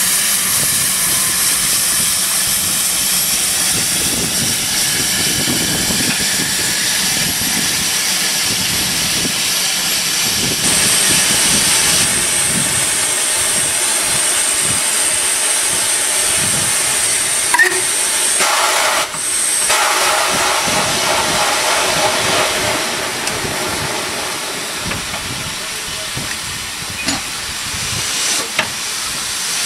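Steady hiss of steam escaping around the cylinders and driving wheels of a standing LMS Ivatt Class 4MT 2-6-0 steam locomotive, No. 43106, with a few short clicks near the end.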